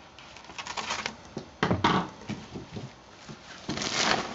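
A plastic cellophane sleeve crinkling and rustling as it is cut open with scissors and a pad of paper is slid out of it. The crackling comes in uneven bursts, loudest about halfway through and again near the end.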